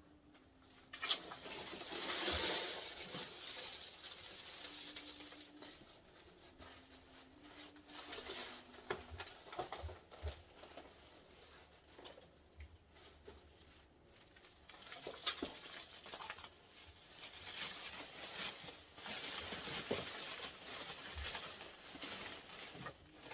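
Irregular rustling and scattered light clicks of dry seed and nut shells being scraped and handled while a parrot cage is cleaned out, louder in stretches.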